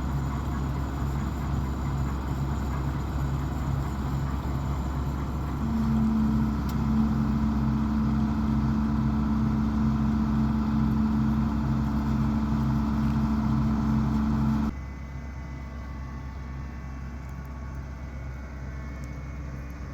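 John Deere combine running, with a low rhythmic pulsing under a steady machine sound; about six seconds in a steady hum joins and holds. About fifteen seconds in the sound drops suddenly to a quieter running sound.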